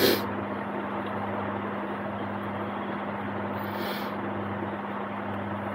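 Steady room hum and hiss with a low drone underneath, and a brief rustle about four seconds in.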